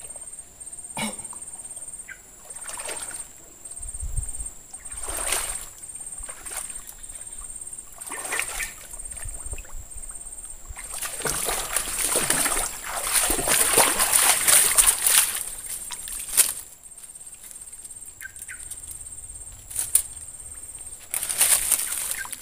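Shallow swamp water splashing and sloshing as a hooked toman snakehead is hauled in and a man wades and steps through the water. The splashing comes in irregular bursts and is loudest for about five seconds in the middle.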